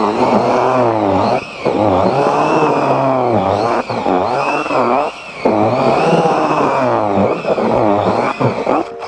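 Cordless drill mixing groundbait in a plastic bucket. The motor whine rises and falls in pitch as the trigger and the drag of the mix change, stops briefly a few times, and cuts off near the end.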